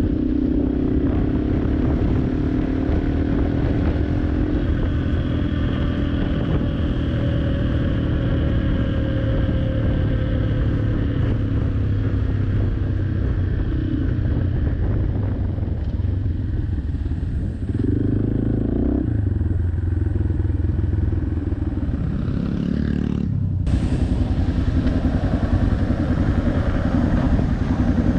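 Yamaha Serow 250's air-cooled single-cylinder engine running through an FMF Powercore 4 aftermarket exhaust, heard from the rider's seat. The engine note falls as the bike slows over the first several seconds, rises briefly about two-thirds of the way through, and steadies again at low speed.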